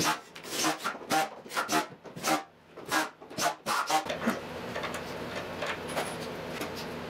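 Wooden table parts being handled and worked together: a series of short scraping, rubbing strokes, about two a second. From about four seconds in the strokes stop, leaving a steady hiss with a low hum.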